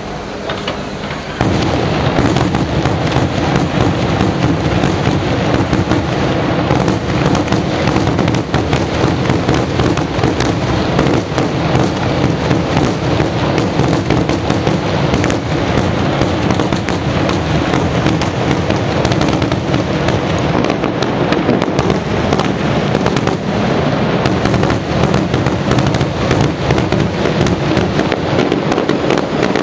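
Fireworks going off in a dense, continuous barrage of rapid crackles and bangs, starting abruptly about a second and a half in.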